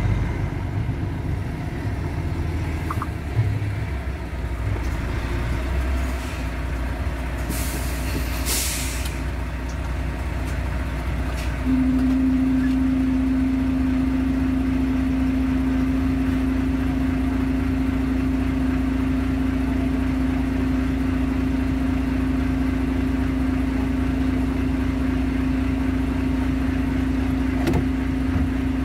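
Heavy truck's diesel engine running, heard from inside the cab. About eight seconds in there is a short hiss of air from the air brakes, and from about twelve seconds in a steady low drone comes in and holds.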